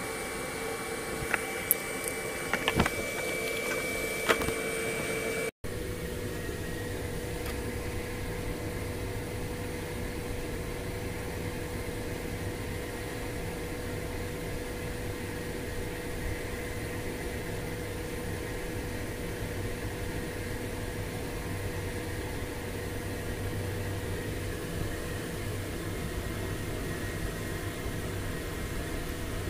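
Steady mechanical hum with a constant tone. There are a few light clicks and knocks in the first few seconds, then a sudden cut to a steadier, deeper hum.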